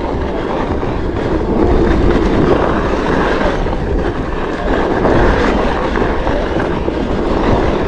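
Onewheel rolling fast over a dirt trail: a steady, loud rumble of tyre on ground, with wind on the microphone.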